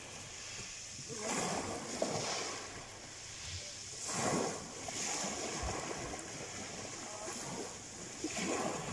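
Small waves breaking and washing over a pebble shore, with three louder surges, about a second in, about four seconds in and near the end.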